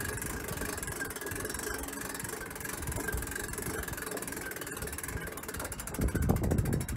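Winch pulling a rusty car up onto a car trailer, running steadily with a vehicle engine idling underneath; a louder low rumble comes about six seconds in as the car rolls further up.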